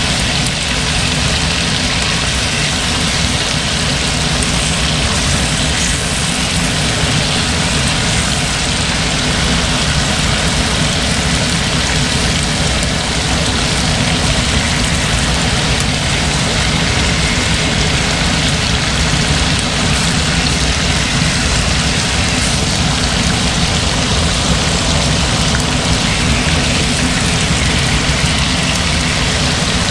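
Chicken wings sizzling steadily as they pan-fry in hot oil in a wok, over a steady low hum.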